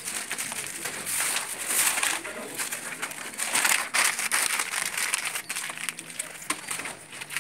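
Sheets of vinyl off-cuts rustling and crinkling as they are handled and shuffled, an uneven run of scrapes and crackles.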